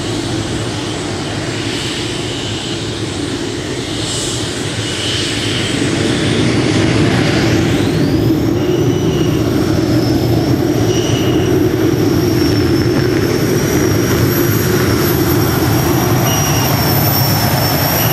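A competition pulling tractor running at full power. A loud, steady engine sound builds over the first several seconds, and about eight seconds in a high-pitched whine rises and holds steady.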